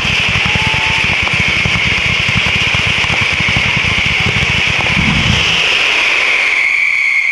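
A daytime sanseverese-style fireworks battery of firecrackers going off in a dense, rapid, continuous crackle, over a loud high hiss that sinks slightly in pitch; it all cuts off suddenly near the end.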